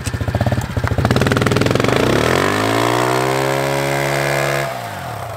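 Honda CRF110 pit bike's small single-cylinder four-stroke engine idling with a pulsing beat. About two seconds in it is revved up, held high for a couple of seconds, then drops back to idle near the end.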